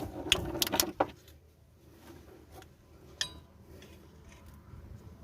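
Light metallic clicks and clinks of steel parts and tools being handled during CV joint replacement: a quick cluster in the first second, then quieter fumbling and a single ringing clink about three seconds in.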